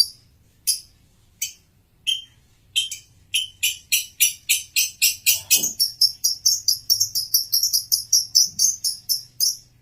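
Male lovebird chirping: sharp, high-pitched chirps, a few spaced ones at first, then a fast, even run of about three a second from about three seconds in.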